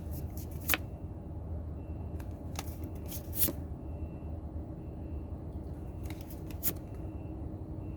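Pokémon trading cards being handled and flipped through one by one, with short scattered swishes and taps of card on card over a low steady hum.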